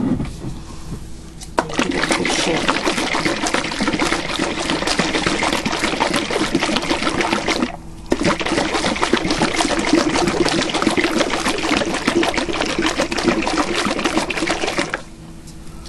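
Lidded pint glass jar of oil-and-vinegar vinaigrette shaken hard, the liquid sloshing rapidly, to emulsify the dressing. The shaking comes in two bouts of about six and seven seconds with a brief pause between them.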